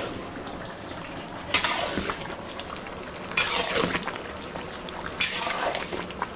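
Long metal ladle stirring a large karahi of goat meat curry that is boiling hard. Three loud scraping strokes against the pan, about two seconds apart, over steady bubbling.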